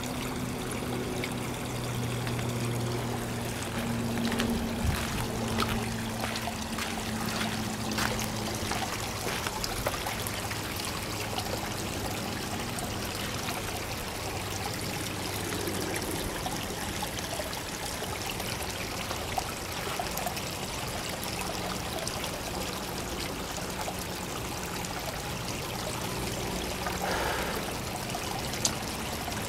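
Water trickling steadily into a garden koi pond, with a faint low steady hum under it for the first several seconds.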